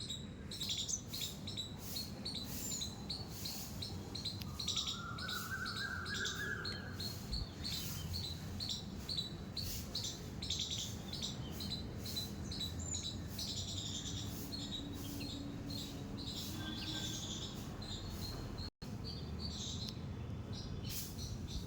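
A squirrel squeaking: rapid, repeated high-pitched chirps, several a second, keeping on throughout. There is a longer rising call about five seconds in, and a momentary break in the sound near the end.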